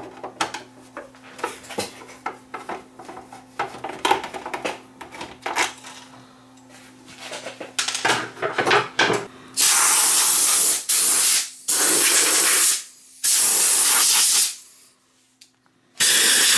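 Small clicks and knocks of hands handling the plastic case for the first nine seconds or so. Then three loud bursts of compressed air hissing from a blow gun, each one to two seconds long, to blow dust out of the very dirty unit. After a short quiet gap another burst starts near the end.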